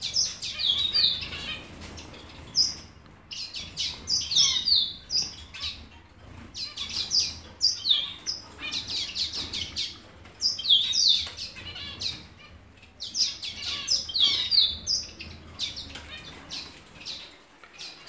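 A mixed aviary of small finches chirping busily: many short, high calls coming in quick clusters every second or two, with brief lulls between.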